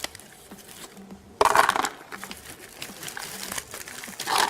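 Small drainage stones being poured into a flowerpot: a short loud burst of stones clattering in about a second and a half in, another just before the end, with small clinks between.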